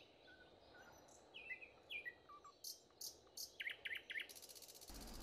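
Faint songbird chirps: a string of short, high calls sliding downward, coming in quick clusters, with a brief fine high buzzing near the end.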